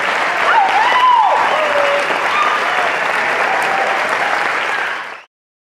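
Audience applauding, with a few voices calling out over the clapping; it cuts off suddenly about five seconds in.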